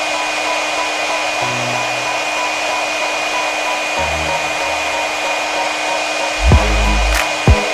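Hot-air rework gun blowing steadily, a constant rushing hiss with a thin steady whine. Background music with low bass notes plays under it, and heavier bass beats come in near the end.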